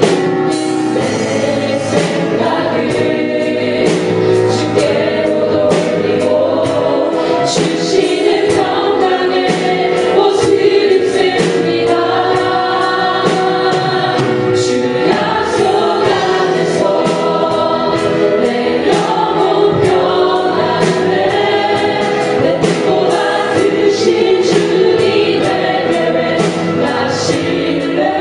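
A praise team and voices singing a Christian worship song with band accompaniment and a steady beat.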